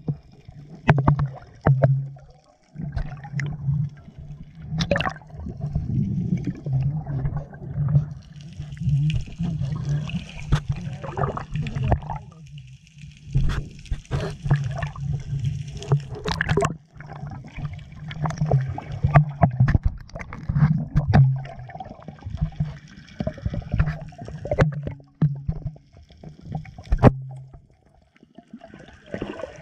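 Underwater sound just below the sea surface: water gurgling and sloshing, with many sharp crackling clicks and a steady low drone, and stretches of hissy bubbling.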